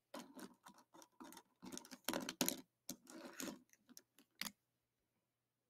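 Faint, irregular clicks and scuffs of a hand picking up a marker and moving over the paper; they stop about four and a half seconds in.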